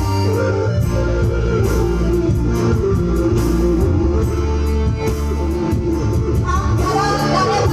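Band music: an instrumental passage led by guitar over bass and drums, with a singing voice coming back in near the end.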